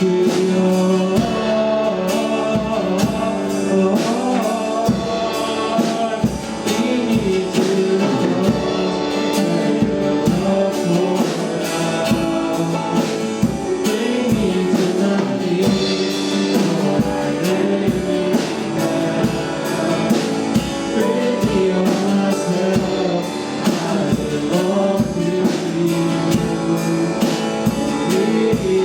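Worship music: singing over a live band with drums, gospel in style.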